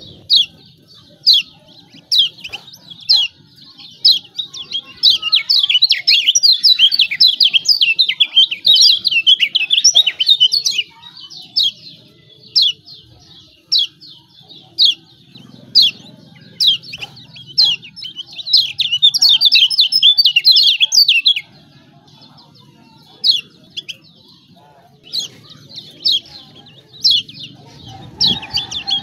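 Kecial kuning white-eye giving sharp 'ciak ciak' chirps, spaced apart at first, then breaking into fast, dense chattering runs of several seconds, twice, with scattered single chirps between and another run near the end. This is the excited call used as a lure to set a silent kecial singing.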